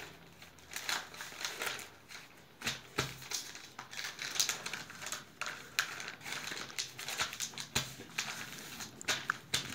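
Newspaper being folded and creased by hand: irregular rustling and crinkling with sharp crackles.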